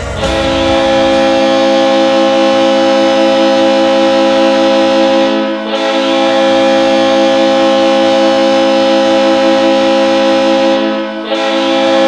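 Kansas City Mavericks' goal horn: a loud, steady air-horn chord of several held notes, sounded in two long blasts of about five and a half seconds each, with a third starting near the end.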